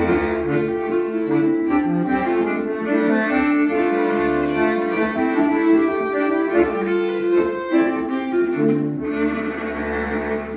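A nyckelharpa bowed in held notes, playing together with a piano accordion and a bass clarinet: live instrumental music.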